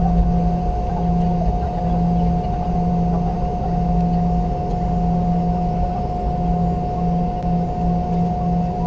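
Boeing 717 cabin noise on the ground at the end of the flight, from its tail-mounted Rolls-Royce BR715 engines and aircraft systems. It is a steady rumble with a steady high whine and a lower hum that keeps cutting in and out.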